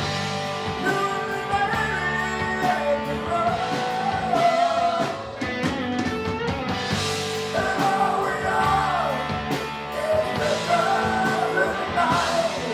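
Live rock band playing, with a voice singing over guitar, bass and drums.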